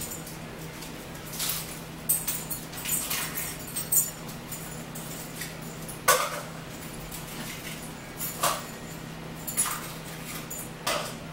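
A dog making short, irregular sounds and moving about, the sharpest about six seconds in, over a steady low hum.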